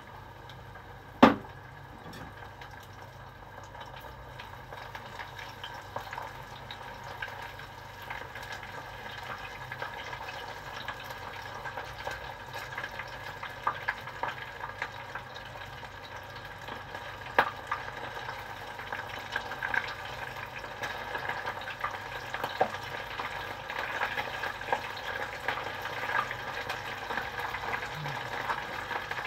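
Karaage chicken deep-frying in a pot of oil: a steady sizzle dotted with crackles that grows slowly louder. A single sharp knock sounds about a second in.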